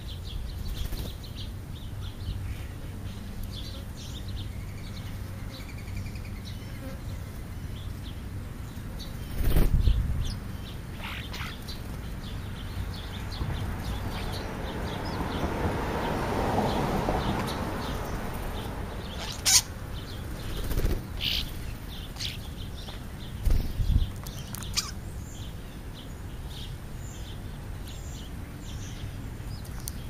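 European starlings landing and feeding right beside the microphone: a few brief wing flutters and taps scattered through an outdoor background, with a buzz that swells and fades for a few seconds near the middle.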